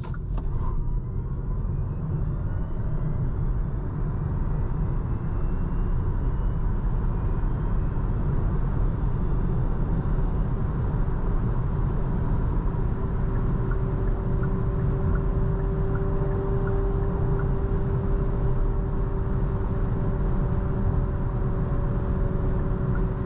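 Kia e-Soul electric car accelerating onto a motorway, heard from inside. Steady tyre and road rumble runs throughout, with a thin electric-motor whine that rises in pitch over the first ten seconds as speed builds. It then settles into steady cruising, with tyre noise, wind noise and a faint steady hum.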